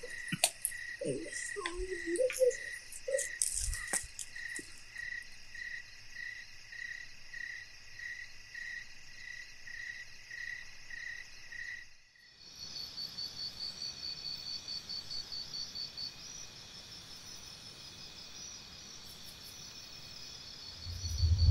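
Night field ambience of crickets: a regular high chirp repeats about every two-thirds of a second over a steady insect hiss, with a few soft knocks in the first few seconds. About twelve seconds in the sound cuts to a different insect chorus, a faster, higher pulsing trill that settles into a steady hiss.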